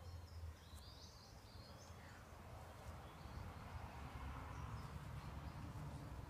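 Quiet outdoor background: a steady low rumble, with a few faint, high chirps in the first second and a half.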